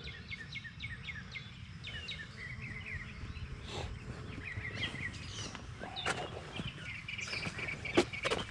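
Small birds chirping in quick runs of short, high notes, over a steady low background rumble. A few sharp clicks come in the second half, the loudest near the end.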